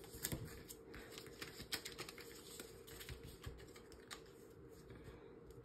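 Faint, irregular clicks and taps of paper being handled and folded into flaps.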